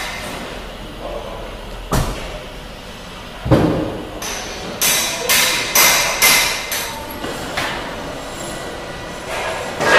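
A series of sharp knocks, like hammer blows: two single knocks, then a run of about eight more roughly half a second apart.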